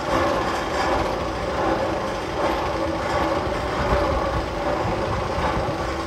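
Roller coaster chain lift pulling a loaded Magnum XL-200 train up the lift hill: a steady mechanical rattle with a hum from the running chain.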